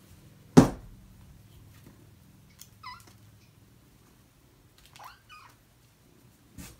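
Kitten mewing: one short high mew about three seconds in and a couple more around five seconds. A loud thump comes about half a second in, and a smaller one near the end.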